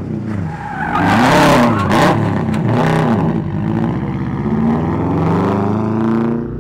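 Subaru Impreza rally car's turbocharged flat-four engine revving up and down repeatedly as the car spins in tight circles. The tires squeal and skid on concrete, loudest about one to two seconds in.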